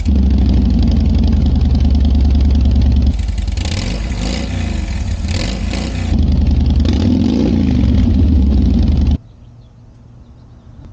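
2008 Harley-Davidson Fat Boy's V-twin engine running loud and steady, revved up and down a few times through the middle, then cutting off abruptly about nine seconds in.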